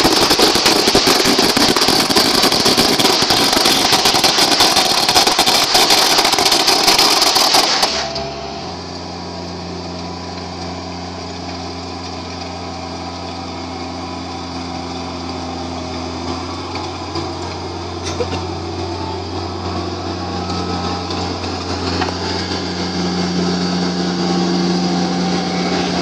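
A loud, harsh hiss covers the first eight seconds and cuts off abruptly. After that, a New Holland tractor's diesel engine is heard running steadily with a low hum, growing slightly louder near the end.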